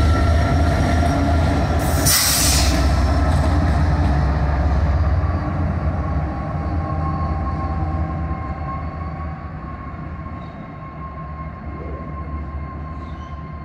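Union Pacific diesel locomotives passing close and pulling away. Their low engine rumble fades from about five seconds in, while a steady high wheel squeal carries on. A brief loud hiss comes about two seconds in.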